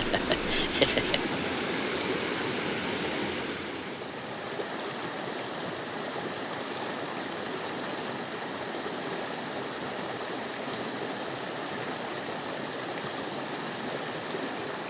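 Shallow river water running steadily over stones, an even rushing sound, a little quieter from about four seconds in. A few sharp clicks in the first second.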